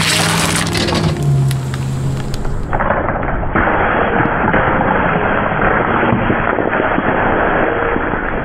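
A car tire rolling onto plastic bottles of coloured water on gravel: crackling and popping plastic over a low engine hum. From about three seconds in, a steady rushing hiss as the crushed bottles burst and spray their liquid.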